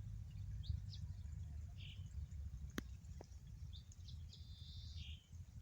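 Birds chirping in short high calls, with one longer call near the end, over a steady low rumble. Two sharp clicks sound around the middle.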